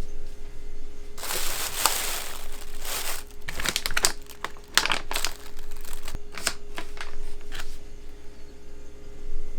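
Packaging being crumpled and handled, crinkling. The sound comes in about a second in as a dense rustle, then breaks into separate sharp crackles that die away near the end.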